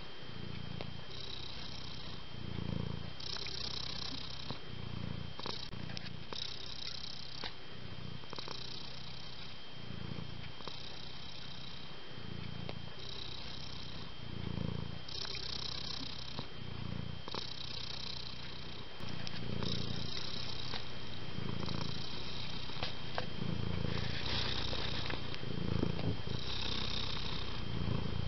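Long-haired tabby cat purring close up, the purr swelling and easing with each breath in and out about once every second or so. It grows louder about two-thirds of the way through.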